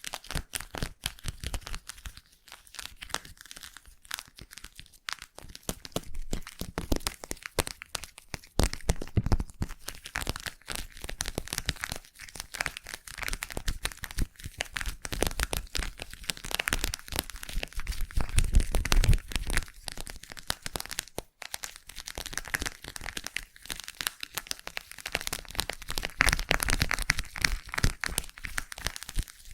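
Slime being squished and worked close to the microphone as makeshift ASMR ear-cleaning sounds: a dense, continuous run of sticky crackles and clicks, swelling louder a few times.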